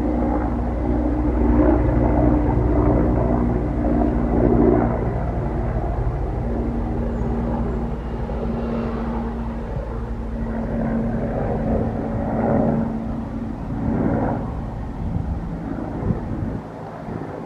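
Bell 412EP twin-turbine helicopter flying past, a steady rotor and turbine drone with a low rumble. Its steady tone drops a little in pitch about five seconds in, and the sound fades near the end as it moves away.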